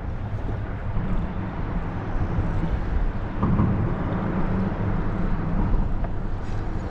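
Steady low rumble of passing motor traffic, swelling slightly about three and a half seconds in.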